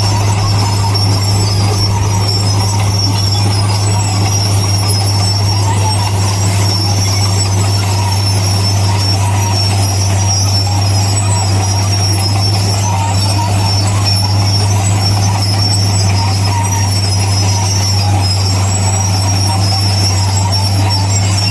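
Heavy diesel construction machinery running with a steady, unchanging low drone.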